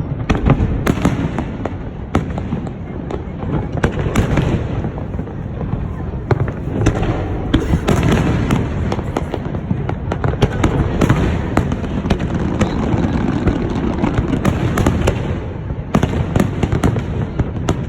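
Fireworks display: many sharp bangs and crackles, some in quick clusters, over a continuous low rumble of launches and bursts.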